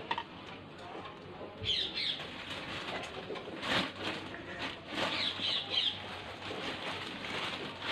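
Soft linen trousers being shaken out and handled: irregular cloth rustling with a few sharp flaps of the fabric.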